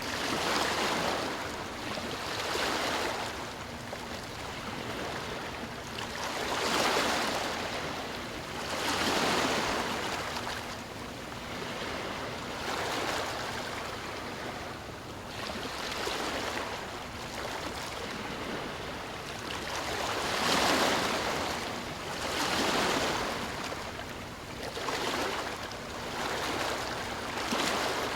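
Sea waves washing in and out, a rushing hiss that swells and ebbs every two to four seconds as each wave breaks and draws back.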